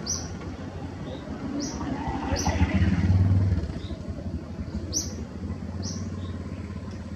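A motor vehicle passes by, its low engine rumble swelling to a peak about three seconds in and then fading. Over it, a bird gives short, high chirps every second or so.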